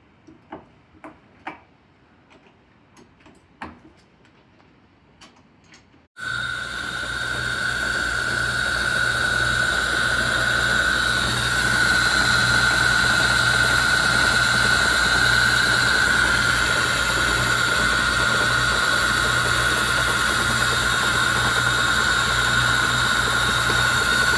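A few faint clicks, then about six seconds in an 1897 metal lathe starts abruptly and runs steadily, with a high whine over a low hum.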